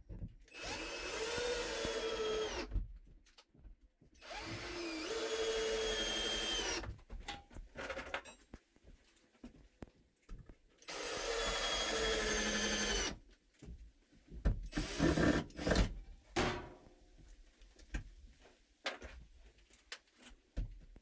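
Cordless drill driving screws in three runs of two to three seconds each, the motor's whine steady through each run, followed by a series of short knocks and clatter.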